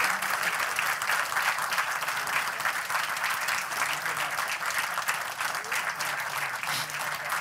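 A large seated audience applauding, dense steady clapping that holds at an even level throughout.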